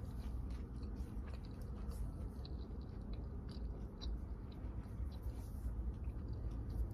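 A person chewing a mouthful of food, with small wet clicks and smacks scattered throughout, over a steady low rumble.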